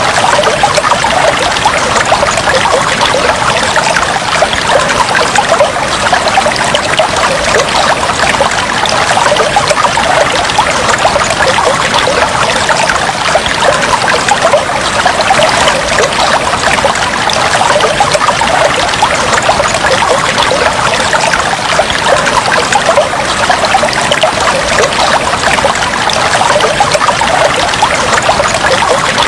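Fish tank water trickling and bubbling steadily, an unbroken stream of small splashes.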